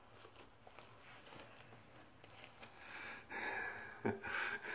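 Faint rustling and small clicks of handling. Then near the end come two short breathy exhales of a man laughing, with a sharp click between them.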